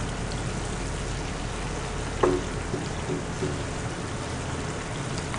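Soy-braised beef (jangjorim) simmering and reducing in a frying pan: a steady bubbling sizzle. One brief sharper sound comes about two seconds in.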